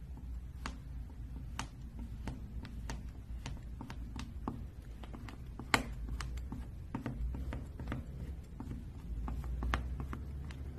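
Metal palette knife pressing into and spreading thick paint on a flat surface: scattered soft, sticky clicks and taps at an irregular pace, with one sharper click about six seconds in, over a low background hum.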